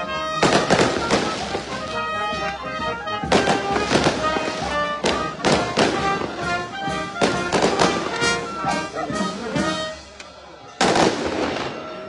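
Brass band music broken by a string of loud, irregular firecracker bangs, each with a short ringing tail. After a brief lull, one more sudden bang comes near the end.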